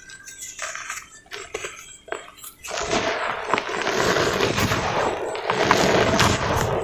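Hands crumbling and crushing dry pure-cement lumps in a bowl of cement powder. A few light clicks and crunches come first, then from about three seconds in a dense, loud crackling crunch as the lumps break apart into powder.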